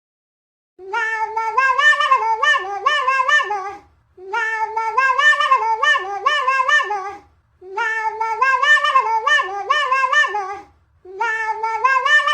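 A song made of cat meows: pitched meow notes strung into a melody, in four repeated phrases of about three seconds each with short breaks between them.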